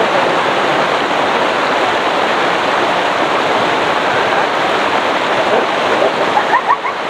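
Steady rush of a fast-flowing river, with swimmers splashing in the current. A short voice is heard near the end.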